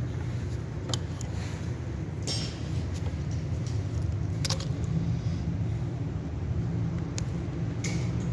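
Scattered sharp metallic clinks of hand tools and car parts being handled, over a steady low hum.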